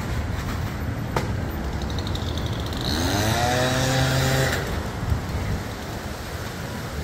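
Steady rumble of street traffic. About three seconds in, a vehicle engine revs up in pitch and holds steady for about a second and a half before fading back into the traffic.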